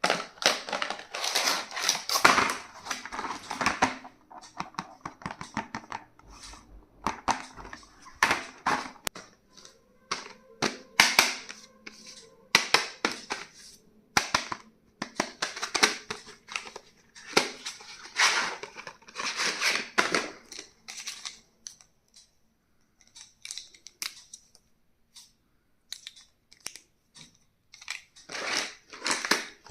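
Stationery being unboxed by hand: packaging rustling and crinkling, with sharp clicks and taps as items, caps and lids are handled, in irregular bursts with short pauses between.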